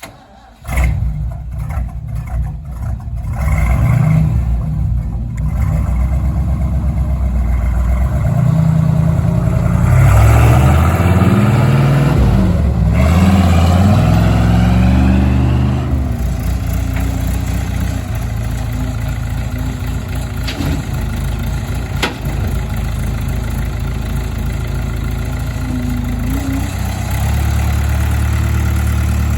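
1972 Ford dump truck's engine running as the truck drives off; it comes in suddenly near the start, its pitch rises and falls for several seconds about a third of the way in as it pulls away through the gears, then it runs steady.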